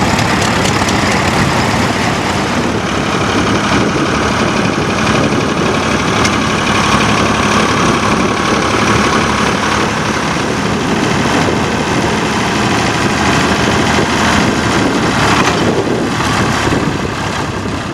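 Vintage tractor engine running steadily.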